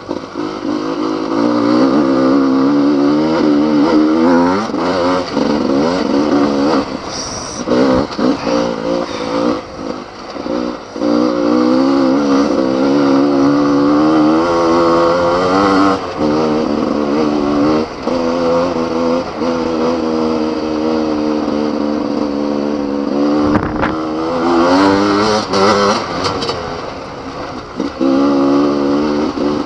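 Enduro motorcycle engine working hard over rough dirt track. The revs rise and fall over and over as the throttle is opened and eased, and it drops off briefly a few times. Occasional thuds come through as the bike hits bumps.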